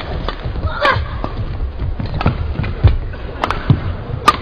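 Badminton rally: rackets striking the shuttlecock in sharp cracks about every second, with low thuds of players' feet on the court.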